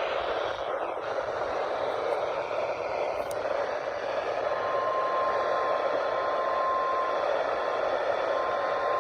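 Weather radio receiver hissing with static, then the steady single 1050 Hz NOAA Weather Radio warning alarm tone comes in about halfway through. The tone breaks off briefly and returns near the end.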